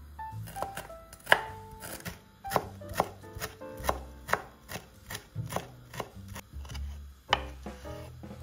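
Kitchen knife chopping food on a cutting board, a steady run of sharp strokes about two a second, with soft background music.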